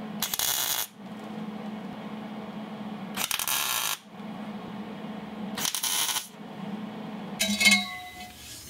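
Wire-feed welder laying three short tack welds, each a crackling burst of about half a second, on an exhaust pipe joint at a stainless steel muffler, with a low steady hum between tacks. Near the end a ringing metallic clank, the loudest sound.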